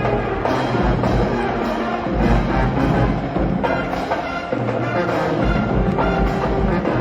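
Loud, steady music with brass and drums over a regular heavy beat.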